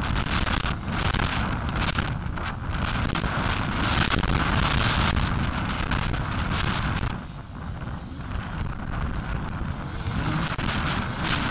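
Two-stroke Suzuki RM250 motocross bike ridden on a dirt track, its engine heard through heavy wind buffeting on the camera microphone. The noise dips for about a second a little past the middle, then picks up again.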